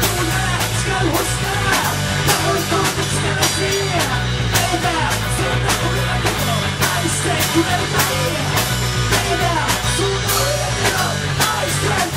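Rock band music: a drum kit keeping a fast, steady beat under loud instruments, with no clear words sung.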